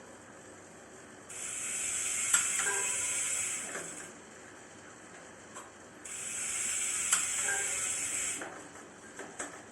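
An aerosol spray can spraying in two bursts of about two and a half seconds each, with a short pause between them.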